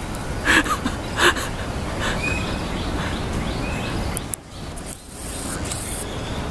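Steady outdoor background noise with a few short, high chirps and two brief noisy bursts in the first second and a half; the noise drops away briefly past the middle.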